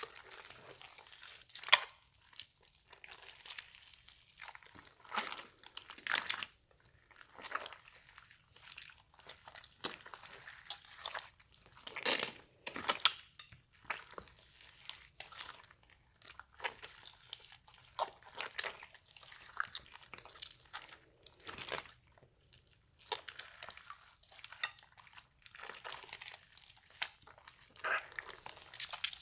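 Slime being squished, pressed and stretched by hand, giving irregular crackles and sticky pops in quick uneven bursts.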